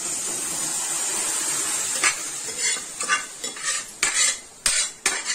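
Tempering of fried onions in hot oil in a kadai sizzling as mashed dal and greens are poured in from a pressure-cooker pot, a steady hiss for about two seconds. After that, a steel ladle scrapes and clinks against the metal pots in a series of short strokes.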